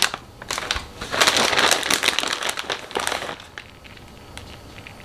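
Plastic resealable bag of shredded cheese crinkling as a hand digs out a handful. A dense crackly rustle lasts about three seconds, then stops.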